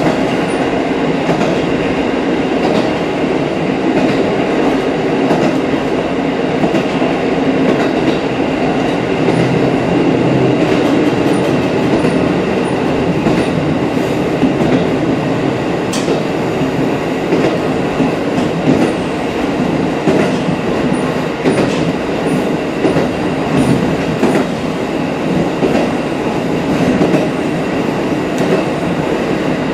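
KiHa 54 diesel railcar running along the line, heard from inside the cab: a steady rumble of engine and wheels on the rails, with occasional clicks from the track.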